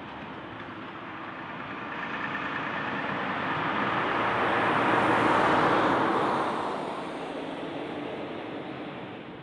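Volvo semi-trailer truck driving past: the engine and tyre noise builds as it approaches, is loudest about five to six seconds in, then fades as it moves away.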